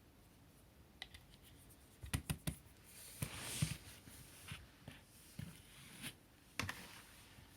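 Handling noises: a scatter of small clicks and knocks, with a scraping rustle about three seconds in and another pair of knocks near the end.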